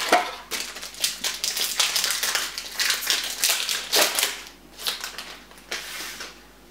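Foil wrapper of a Yu-Gi-Oh! booster pack crinkling and crackling in the hands as it is torn open, with irregular crisp crackles that thin out near the end.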